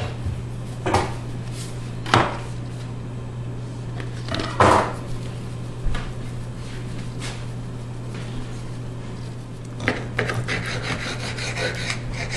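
A few brief knocks and rattles of seasoning containers being handled, then from about ten seconds in a knife sawing through raw chicken breast on a cutting board in quick rasping strokes. A steady low hum runs underneath.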